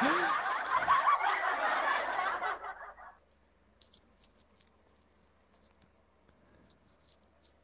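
A man laughing, dying away about three seconds in; then near silence with a few faint clicks.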